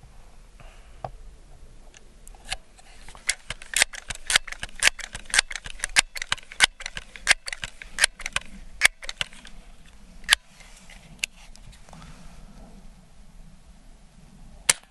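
Crosman 1322 .22 multi-pump pneumatic pellet pistol being pumped ten times for full power: a quick run of metallic clicks and clacks from the pump lever. Near the end comes a single sharp crack as the pistol is fired.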